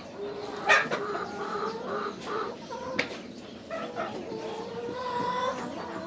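A flock of chickens clucking and calling over one another, with a sharp knock about two-thirds of a second in and a lighter click about three seconds in.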